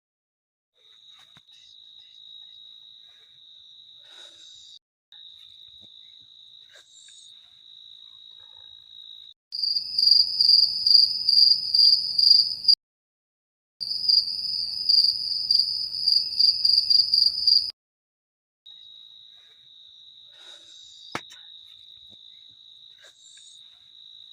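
Night insects, crickets, trilling steadily on one high note. For about eight seconds in the middle, a louder insect call pulses rapidly a little higher in pitch, broken by an abrupt gap. A single sharp click comes near the end.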